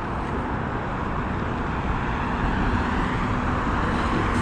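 Steady road traffic noise from passing cars, growing a little louder near the end.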